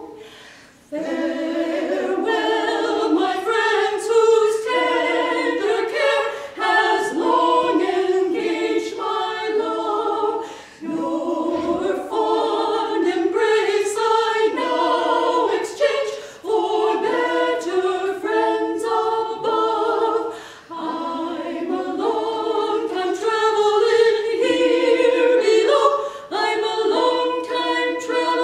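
Women's vocal quartet singing in close harmony, phrase after phrase, with short breaks for breath every few seconds.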